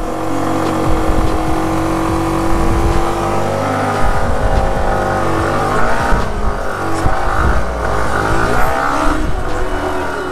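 Yamaha R15 M's 155 cc single-cylinder engine running and revving, its pitch rising and falling several times in the middle stretch.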